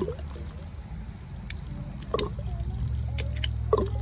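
A steady low mechanical hum like a running engine, with a few short sharp clicks and brief chirps over it.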